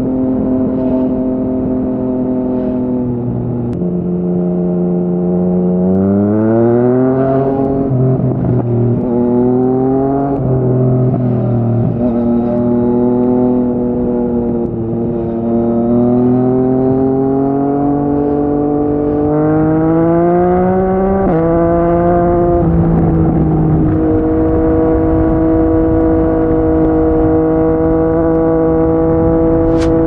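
Yamaha MT-09's three-cylinder engine through a Yoshimura R55 slip-on exhaust, pulling up through the gears: the pitch climbs and drops suddenly at each upshift, several times. In the last six seconds it holds a steady cruise.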